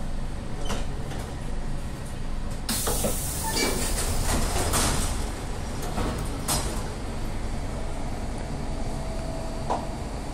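Siemens C651 train's saloon doors sliding open about three seconds in: a noisy rush and rattle lasting about two seconds, followed by a few sharp knocks. A steady low rumble from the stopped train runs underneath.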